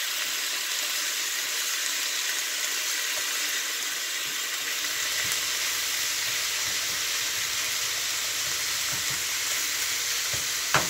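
Ground beef, green pepper and onion sizzling steadily in a nonstick skillet while a silicone spatula stirs through it, with a sharp tap near the end.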